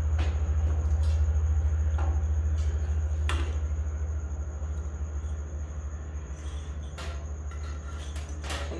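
A loud, steady low hum with a fine even pulse, with a few light clicks and knocks over it.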